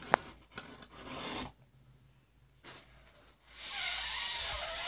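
A sharp click just after the start and some handling noise, then from about three and a half seconds in a steady rushing noise of breath blown hard onto a metal fidget spinner held at the lips to spin it.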